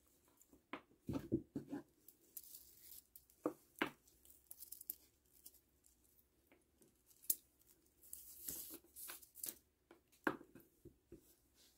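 Plastic pony beads clicking against each other and string rubbing through them as a beaded cuff is handled and pulled tight. The sound is faint: scattered light clicks with a few soft brushing stretches between them.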